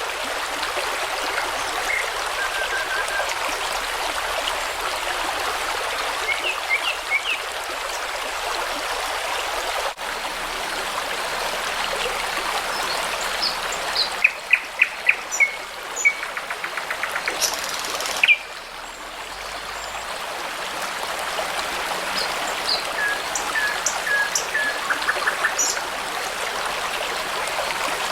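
A brook babbling steadily with songbirds, nightingales among them, singing over it. About halfway through, a bird gives a run of loud, sharp repeated notes, then a fast trill.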